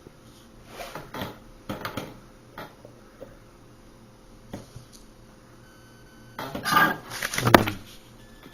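Clicks and knocks of parts being handled and fitted on a coffee machine, with a louder clatter and knock about six and a half seconds in.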